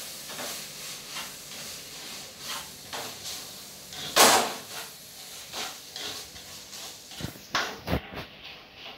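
A ladle scraping and knocking against a kadai as cauliflower and potato curry is stirred to mix in sauce, over a faint sizzle from the pan. The loudest scrape comes about four seconds in, with a few sharper knocks near the end.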